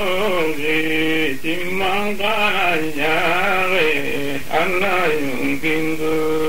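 A man singing a melodic line, moving between long held notes.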